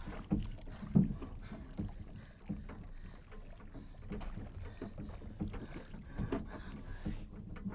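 Water slapping and lapping against the hull of a small sailboat, with irregular short knocks of the boat as it rocks.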